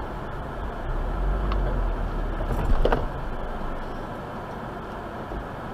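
Car cabin road and engine noise, a steady low rumble that swells for a couple of seconds and then eases. A short, sharp clatter comes just before the middle.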